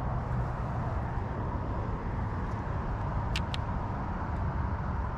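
Steady low background rumble with no change in level, broken by two quick clicks about three and a half seconds in.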